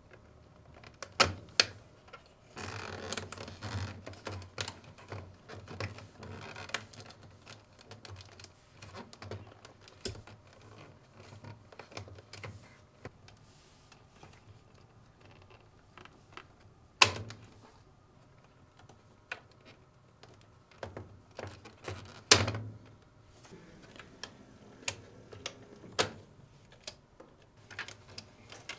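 Plastic wire-harness connectors being pulled off a Fisher & Paykel washer's motor control circuit board: a scattered series of small clicks and snaps as the plugs come free, with wires rustling. Two sharper snaps stand out, about two-thirds of the way through and again about five seconds later.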